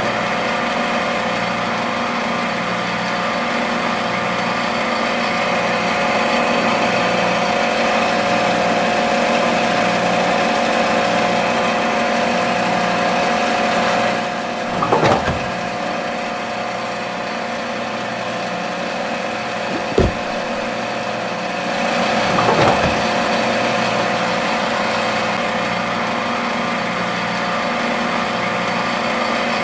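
Mini toy tractor's motor running steadily with an even, engine-like hum. A brief louder swell comes about halfway through, then a sharp click, then another short swell.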